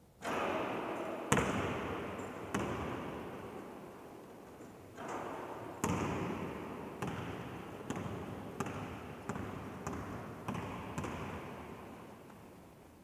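A basketball bouncing on a sports hall floor as it is dribbled, a string of sharp knocks, each ringing out in the empty hall's echo. They are spaced out at first and come about twice a second from the middle on.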